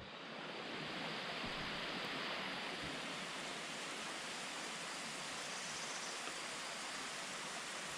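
Steady, even rushing noise of water, with no separate drops or knocks standing out.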